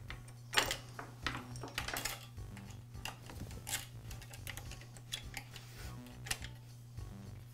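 Chainsaw chain being fitted by hand onto the guide bar, its steel links clinking and rattling against the bar in irregular metallic clicks.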